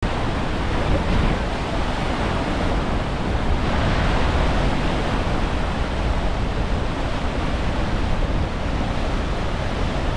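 Steady rush of Niagara Falls' falling water, with wind buffeting the microphone.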